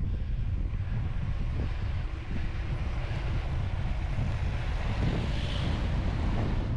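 Wind buffeting the camera microphone while cycling: a steady low rumble.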